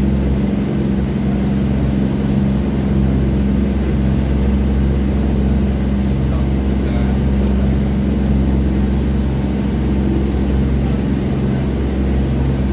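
Boat engine droning steadily underway, a deep even hum, with water rushing past the hull.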